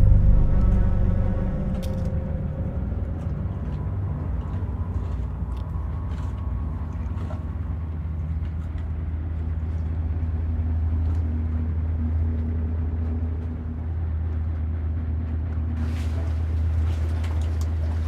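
A boat's engine running with a steady low rumble. Near the end come a few sharp knocks and clicks.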